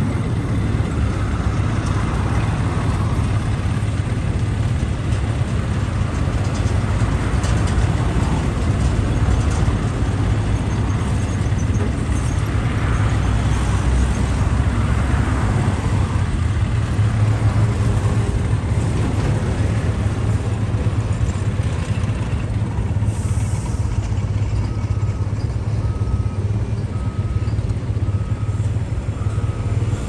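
Road traffic noise: motor vehicles running steadily past, mostly low-pitched and without a break. A faint beep repeats about once a second near the end.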